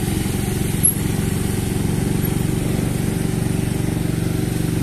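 Motorcycle engine running steadily at low revs, with a brief click about a second in.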